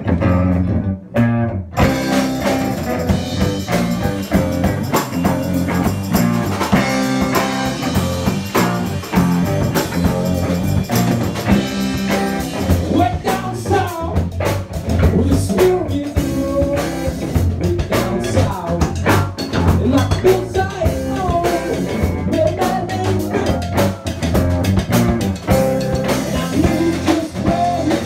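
Live blues-rock band playing: electric guitars, drum kit and hand drums. The full band sound comes in about two seconds in, after a brief drop, and a wavering lead line rises over it in the second half.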